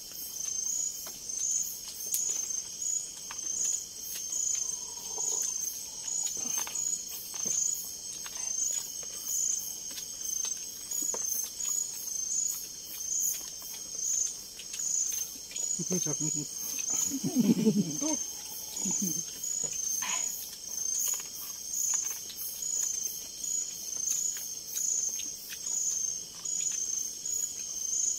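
Night insects in tropical forest chirping in a steady high-pitched pulsing chorus, about one pulse a second, with fainter rapid ticking above it. A brief low murmur of a voice comes about two-thirds of the way through.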